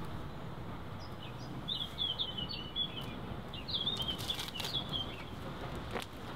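A small bird chirping in two quick runs of short, high notes, the first starting about a second and a half in and the second near the middle, over a steady low background hiss.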